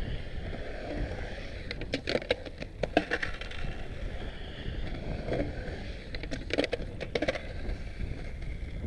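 Skateboard wheels rolling on a concrete bowl with a steady low rumble, and sharp clacks and knocks from the board and trucks in two bursts, about two seconds in and again around seven seconds in.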